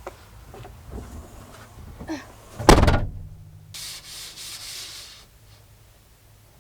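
Scattered small knocks and handling noises, then one loud thump about three seconds in, followed by a second or so of rustling, as trash is cleared out of a car.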